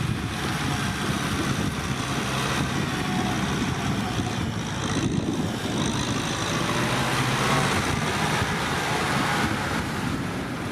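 Kubota M6040SU tractor's diesel engine running steadily with a low hum, under a wide wash of working noise.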